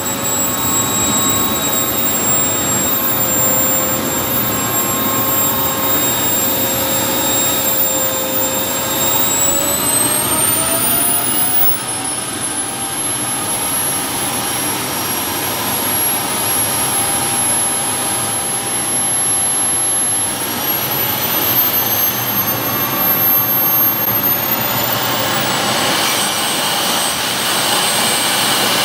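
Model jet turbine in a BVM Super Bandit running on a ground test, a high whine over a steady rushing roar. The whine climbs in pitch about ten seconds in and again after about twenty seconds as the turbine spools up to higher speed.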